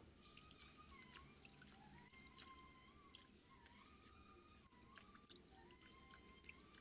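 Faint background music: a simple melody of long held notes stepping up and down, with scattered small clicks and ticks.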